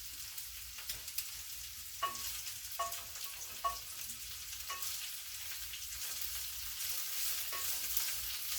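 Chopped green beans sizzling in oil in a pan as they are sautéed on a low flame to cook off the raw smell, with a steady frying hiss. A spatula strikes the pan with short ringing clicks about once a second from about two seconds in.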